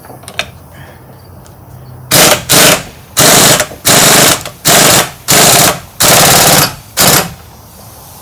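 Impact wrench hammering in about eight short trigger bursts, tightening a nut, deliberately not run down too tight.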